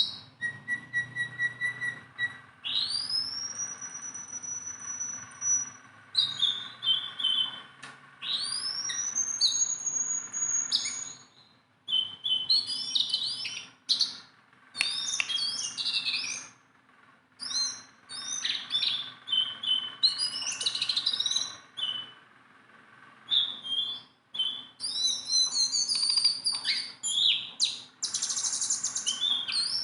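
A jongkangan songbird singing at length: a varied run of whistled notes, long rising glides and quick chirps, broken by short pauses.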